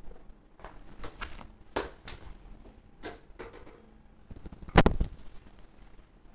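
Bata fish frying in hot mustard oil in a wok: irregular crackles and pops of spattering oil, with one louder thump about five seconds in.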